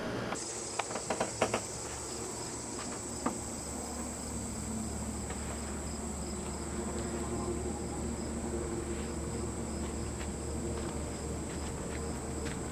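Steady, high-pitched chorus of crickets, with a few short clicks about a second in and another at about three seconds.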